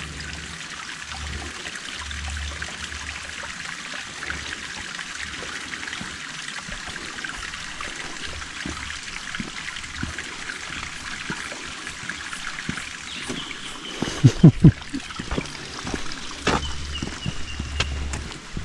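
Steady hiss of running water in the forest, with a few loud close thumps about three quarters of the way through.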